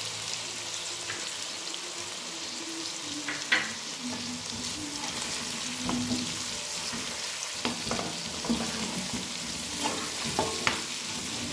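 Chicken pieces with onion and spices frying in a metal pan with a steady sizzle, while a slotted spatula stirs and scrapes them off the bottom, where they have begun to stick. There are sharp knocks of the spatula against the pan, most of them in the second half.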